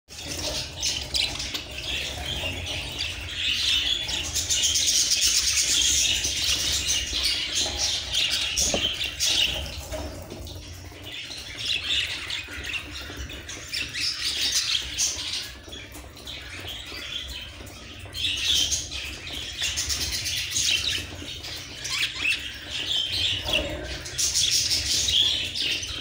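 A flock of budgerigars chattering and chirping, the chatter swelling and fading in waves every few seconds.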